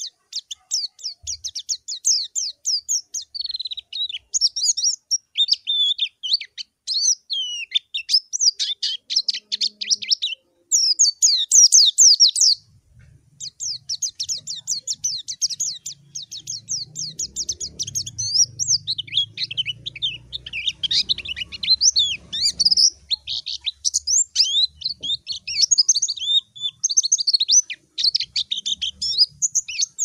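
White-eye (pleci) singing a long, fast twittering song of high, sweeping chirps, broken only by short pauses about ten and thirteen seconds in; this is the song with which a white-eye calls out a rival.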